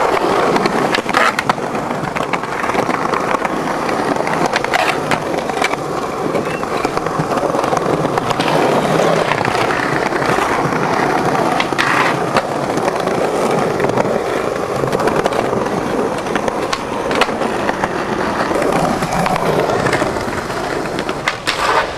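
Skateboard wheels rolling steadily over smooth pavement, with a few sharp clacks spread through, typical of the board's tail popping and landing on tricks.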